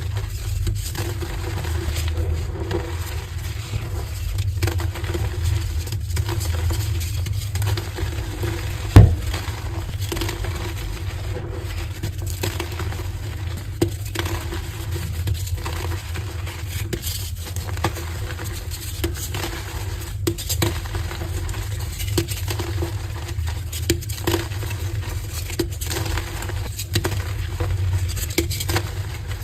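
Heart-shaped blocks of dyed gym chalk being broken and crushed: a run of small crunches and crackles, with one sharp knock about nine seconds in, over a steady low hum.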